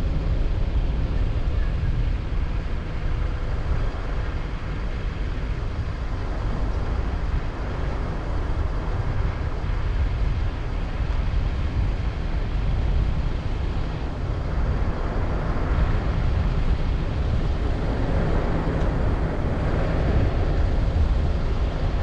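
Steady low rumble of a car driving slowly: road and engine noise, with wind buffeting the microphone through an open side window.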